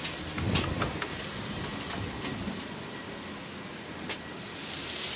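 Outdoor street ambience: a steady hiss with a few light clicks, and a low rumble about half a second in.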